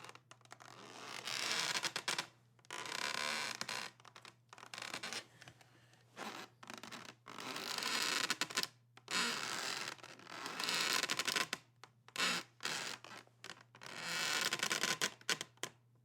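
Wood creaking under strain: a run of drawn-out, scratchy creaks, each about one to two seconds long, with short pauses between them.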